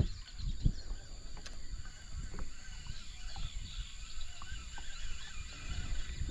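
Outdoor ambience: birds calling faintly over a steady high insect drone, with scattered low thumps on the microphone.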